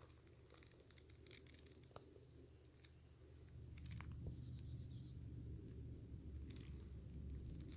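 Faint footsteps on a trail, with scattered light crunches and a sharp click about two seconds in, over a low rumble that grows louder about halfway through.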